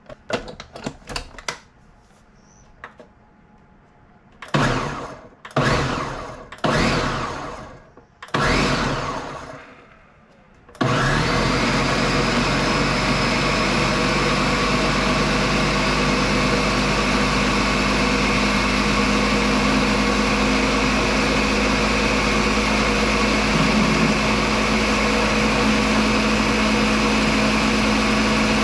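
A few light clicks and clatters, then four short sounds that each fade out over about a second. About eleven seconds in, a countertop blender starts and runs steadily, pureeing soft-cooked vegetable soup.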